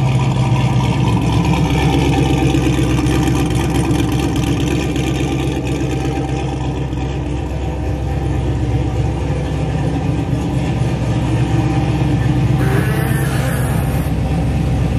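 Turbocharged 6.0-litre LS V8 in a Camaro running at a steady idle, with a short hiss near the end.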